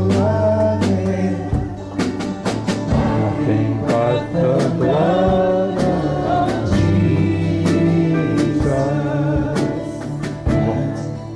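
Gospel-style worship music: a voice singing over instruments, with a steady beat.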